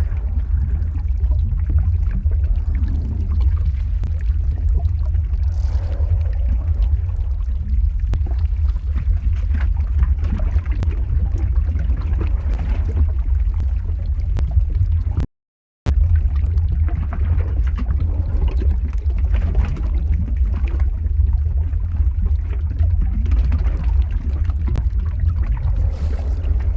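Lava flow ambience sound effect: a deep steady rumble under a rough pouring, gurgling noise with scattered small crackles. It cuts out to silence for about half a second a little past halfway through.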